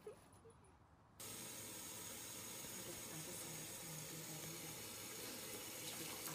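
A steady, even hiss that starts abruptly about a second in, after a few faint short sounds.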